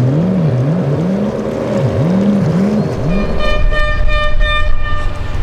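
Boat horn sounding in a quick series of short toots, beginning about three and a half seconds in, after a wavering low-pitched sound.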